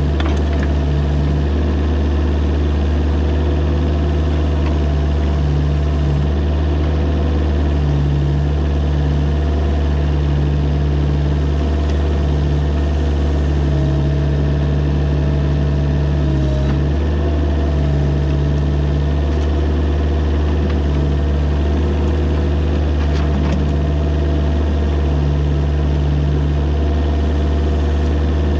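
Mini excavator's diesel engine running steadily, its tone shifting a little now and then.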